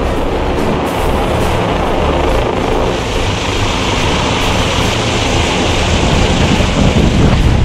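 Helicopter hovering low overhead, its rotor and engine noise a loud, steady rush that grows brighter and hissier about three seconds in.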